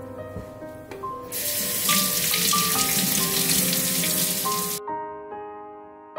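Kitchen tap running for about three and a half seconds, turned on about a second in and shut off abruptly, most likely rinsing carrots. Background piano music plays underneath.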